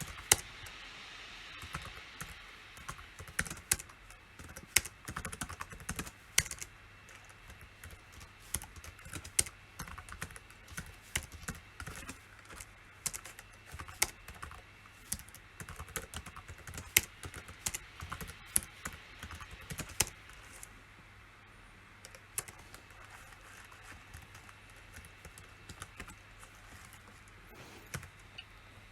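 Typing on a computer keyboard: quick, irregular runs of keystrokes that stop about two-thirds of the way through, leaving only a couple of isolated key clicks.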